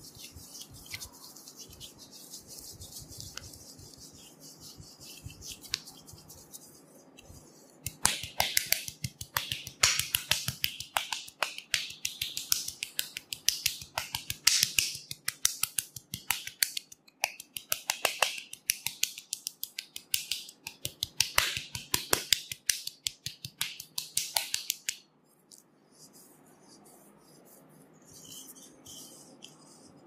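Wooden massage paddle rubbed over oiled skin, then a long run of rapid, sharp taps of the paddle on the oiled back, several a second, that stops suddenly near the end, leaving faint rubbing.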